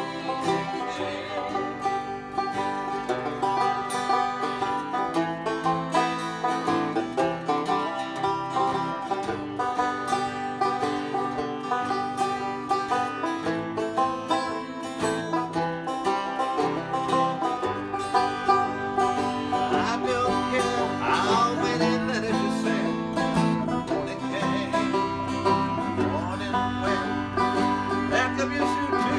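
Banjo and acoustic guitar playing a country-bluegrass tune together, quick plucked banjo notes over the guitar's chords.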